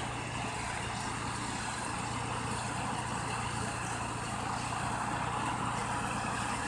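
Asphalt-milling machine running steadily while stripping the old road surface: a low engine hum under a broad rushing noise, getting slowly louder.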